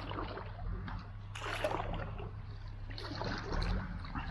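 Handling noises in a canoe: a fishing net and gear rustled and shifted in the bottom of the boat, in three short noisy bursts about a second and a half apart.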